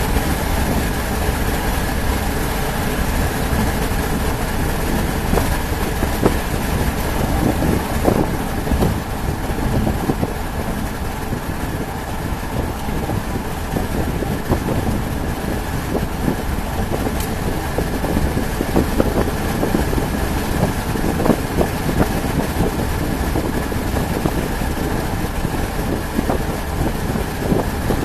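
Steady vehicle noise: a continuous engine and road rumble, with a faint steady whine and small scattered clicks.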